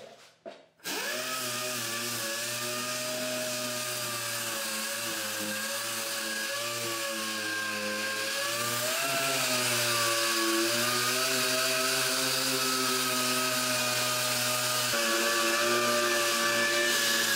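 Pneumatic dual-action (DA) sander running against a car's welded steel quarter-panel seam, sanding it down to prepare the repair for body filler. It makes a steady air-tool whine over a hiss, starts about a second in, and its pitch wavers as the pad is pressed and moved over the panel.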